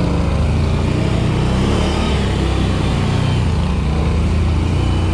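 Quad (ATV) engine running steadily at low revs, with a deep, even drone.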